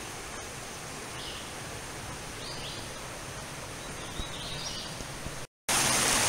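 Woodland background hiss with three or four short, high bird calls. Near the end, after a brief gap, the louder steady rush of a shallow creek running over rocks.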